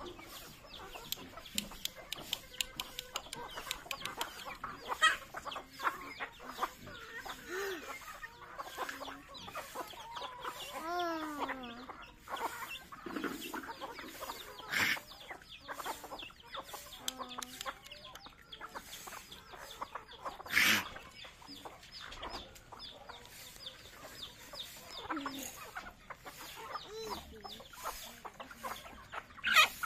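A flock of native chickens clucking as they feed, with many light clicks of beaks pecking grain off concrete. A few louder calls stand out, about 15 and 21 seconds in and again near the end.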